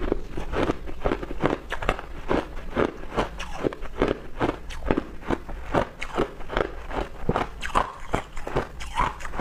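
Crushed ice crunching in a steady run of short, sharp crunches, about three a second.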